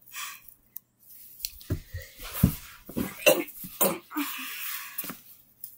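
Handling noise close to the microphone: plush toys being moved and set down, with a run of irregular knocks and clatters and some rustling over about four seconds.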